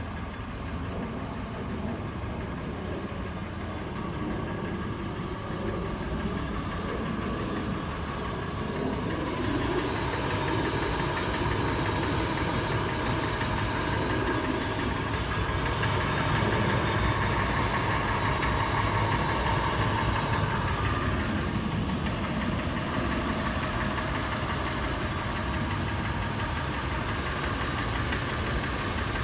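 Toyota FJ engine idling warm with a loud, sharp metallic tapping or knocking. The engine gets louder and brighter from about ten seconds in until about twenty-one seconds in.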